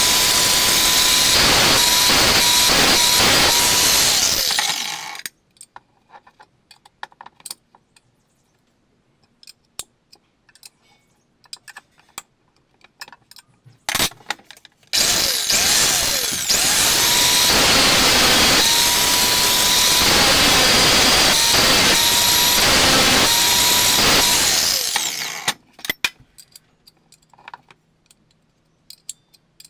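Electric power tool motor running with a steady whine for about five seconds, then stopping. Small clicks and taps follow, with a brief burst near the middle. The tool then spins up and runs for about ten seconds before winding down, and light clicking continues to the end.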